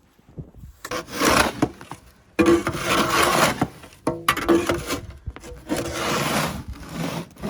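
Snow shovel scraping and pushing heavy wet snow in about five strokes, each roughly a second long, with short pauses between them.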